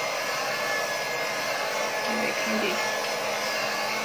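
Electric hand mixer running steadily with a constant whine, its beaters churning chilled water through cream in an aluminium pot as the butter separates into grains.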